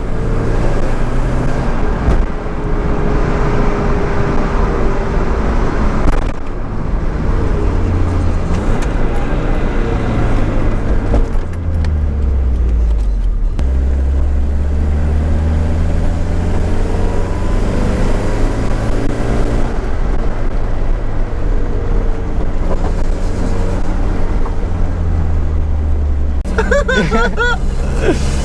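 Nissan CA18DET four-cylinder turbo engine running under way, heard from inside the car. The engine note climbs and drops several times as it revs through the gears.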